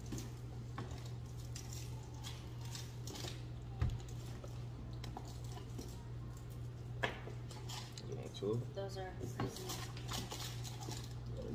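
Scattered light clicks, knocks and rustles of snack packets and wrapped candies being handled and set down on a table, over a steady low hum.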